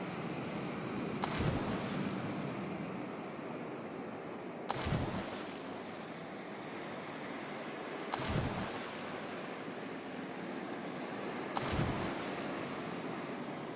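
Steady ocean surf noise, with a short sharp hit and low thump repeating about every three and a half seconds, four times.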